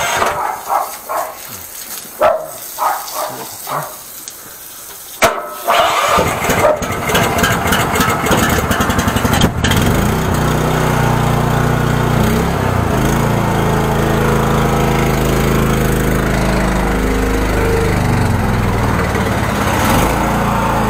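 A high-pressure drain jetter's small engine starts about five seconds in after a sharp click and a few scattered knocks, then runs steadily, its pitch shifting a few times.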